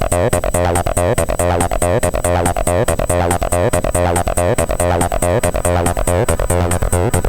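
Acid techno played live on hardware synths, samplers and drum machines: a pitched acid synth line, the kind a Behringer TD-3 plays, moves note to note over a steady bass. A fast, even high hi-hat tick runs at about four or five ticks a second.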